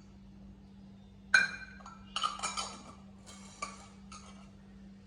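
A spoon clinking and scraping against a bowl while curd is spooned in: a sharp ringing clink about a second in, then a few shorter clinks and scrapes.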